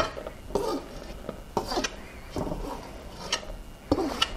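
A metal spoon scraping and tapping inside a stainless steel mixing bowl as powdered sugar and cocoa mix is scooped out. There is a sharp knock at the start and a few lighter clicks later.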